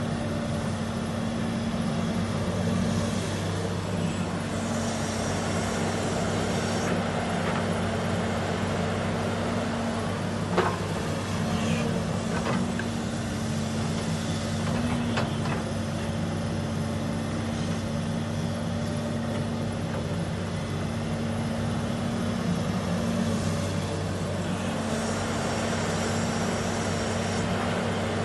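Matador crawler excavator's diesel engine running steadily under load as it digs and swings, with a sharp knock about ten seconds in, a few lighter clanks after it, and two stretches of hiss.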